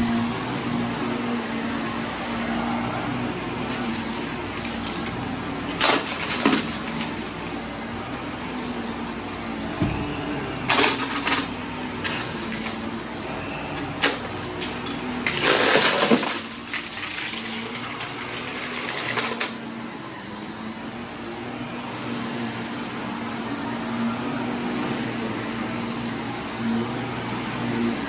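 Vacuum cleaner running steadily, with short crackling rattles of debris being sucked up a few times, the longest about 15 to 16 seconds in.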